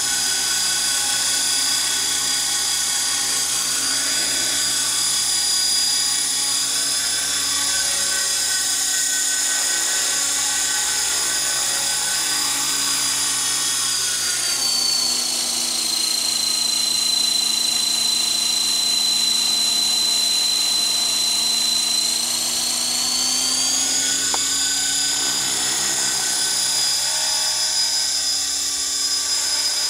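Electric 450-size RC helicopter hovering, a steady high-pitched whine from its motor and spinning rotors. The pitch drops about halfway through, holds lower for several seconds, then rises back.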